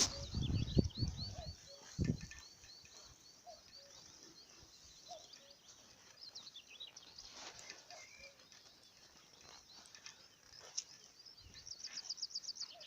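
Birdsong: small birds chirping and trilling in high, quick notes, with a rapid trill near the end. Underneath, faint low two-note calls now and then, like a distant common cuckoo's 'koo-koo'.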